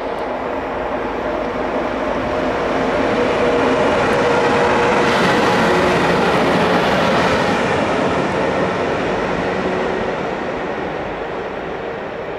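Class 474 electric locomotive running light past at close range, its motors and wheels on the rails. The sound swells to its loudest about halfway through as the locomotive goes by, then fades as it moves away.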